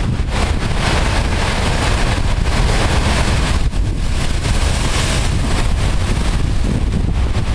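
Heavy storm surf crashing and foaming over a rocky shore in surges of hissing spray, with strong wind buffeting the microphone.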